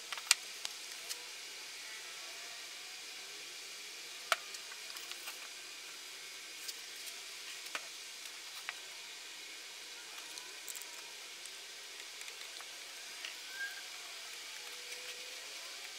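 Faint steady hiss with a few scattered sharp clicks and taps as glued wooden birdhouse walls are fitted together and an Irwin Quick-Grip one-handed bar clamp is squeezed tight.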